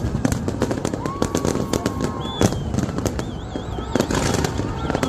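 New Year fireworks going off: a dense scatter of bangs and crackles, with high whistling tones over them, one of them wavering up and down near the middle.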